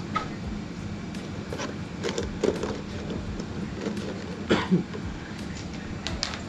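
Scattered light clicks and knocks of small items being handled at a shop counter, with a louder knock about four and a half seconds in, over a steady low hum.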